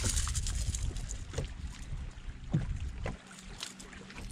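Wind rumbling on the microphone over water moving against a boat, with a few soft knocks about a second apart.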